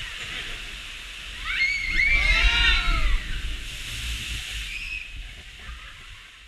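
Ride boat going down a short drop in the dark on a water ride: steady rushing-water hiss with a deep rumble as the boat goes over. About two seconds in, a voice gives a cry that rises and falls in pitch.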